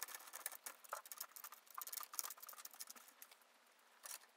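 Faint, irregular small metallic clicks and ticks of a screwdriver working the motherboard's standoff screws loose, thinning out about three and a half seconds in.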